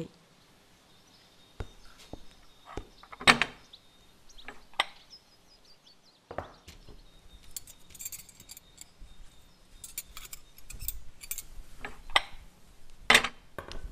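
Scattered knocks and light metallic clinking of things being handled. There are a few sharp knocks, and a run of fine clinks near the middle.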